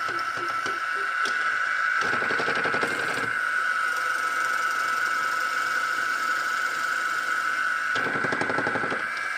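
Wood lathe running with a steady high whine while a drill bit in the tailstock chuck bores into the spinning pen blank, with two bursts of rougher cutting noise, about two seconds in and near the end.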